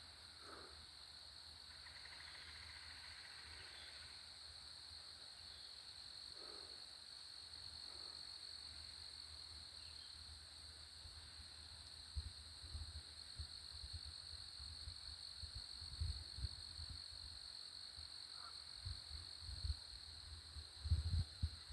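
Steady high-pitched chorus of night insects, crickets. Faint low thumps and rumbles come in during the second half.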